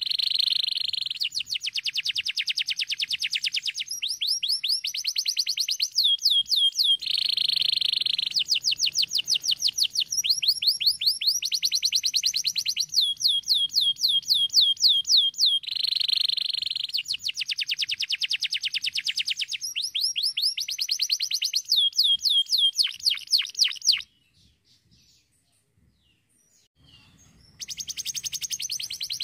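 Domestic canary singing a long song of rapid trills, each phrase a fast run of repeated high notes, one phrase running straight into the next. About three seconds before the end it breaks off briefly, then starts again.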